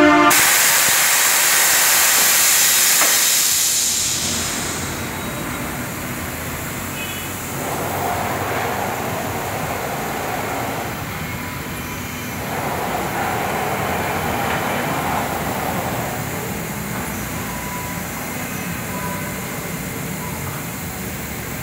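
A loud hiss of compressed air from a CNC log-sawing carriage's pneumatic clamp cylinders lasts about four seconds. It gives way to a steady mechanical whir of the machine working, which swells twice.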